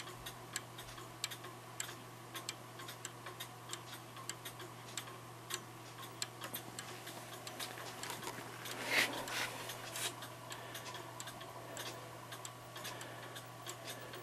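A German free-swinger wall clock's spring-driven, French-style movement ticking on test run with its pendulum on, its pallets freshly readjusted after someone had tampered with them. A cuckoo clock on a test stand ticks alongside it, so two tick rhythms overlap. There is a brief louder noise about nine seconds in, over a steady low hum.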